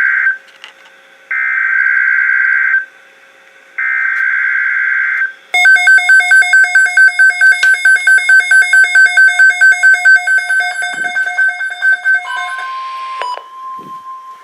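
Emergency Alert System SAME header tones on NOAA Weather Radio: three screeching digital data bursts about a second apart. Then a loud electronic alarm beeps rapidly, about four beeps a second, and near the end a steady, quieter alert tone begins underneath.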